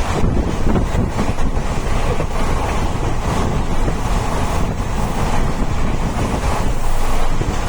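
Train in motion: a loud, steady rumble with heavy wind buffeting the microphone.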